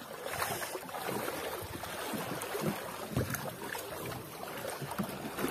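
Shallow seawater sloshing and splashing around a small boat's hull as people wade beside it, with a few short, irregular splashes.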